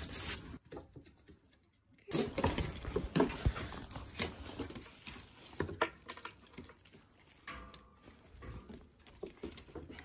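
A dog's claws clicking and pattering on timber decking as it walks and turns about, in irregular quick taps that start about two seconds in.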